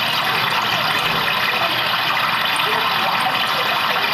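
A person gurgling water in the throat into a microphone, giving a continuous, loud, rushing bubbling with no pauses.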